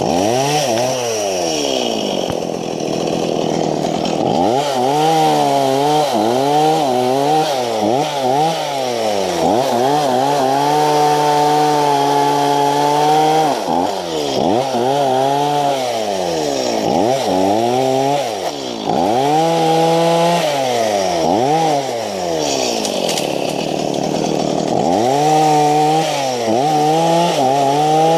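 Two-stroke chainsaw cutting through brush and small trunks, revved up and down again and again as the throttle is blipped, with a few seconds held at high revs midway.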